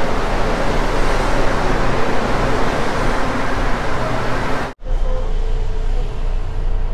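Rubber-tyred Mexico City Metro train running alongside the platform with a loud rushing rumble. About five seconds in, the sound cuts off abruptly and gives way to the steadier, duller low rumble and hum of a train car heard from inside while it travels.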